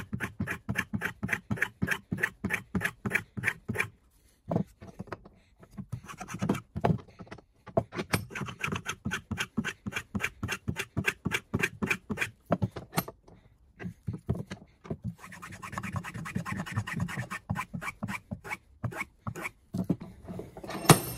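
Clifton No. 5½ jack plane taking shavings off a wooden edge, sped up in time-lapse: a fast run of rasping strokes, about three or four a second, with a few short pauses.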